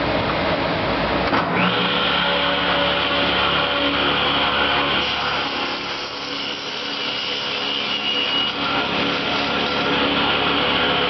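Grizzly G1023SL 3 HP 10-inch table saw running and crosscutting, a steady motor-and-blade whine. The sound changes suddenly about a second and a half in and drops briefly near the middle.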